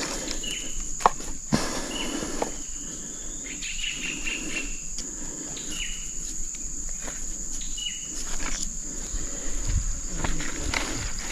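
Steady high-pitched insect drone, with short chirps repeating every second or two. A few sharp clicks and some rustling and low knocks near the end, as a cord is handled around a tree trunk.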